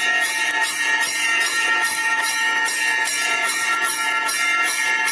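Temple bell rung steadily, struck about twice a second, its ring sustaining between strokes.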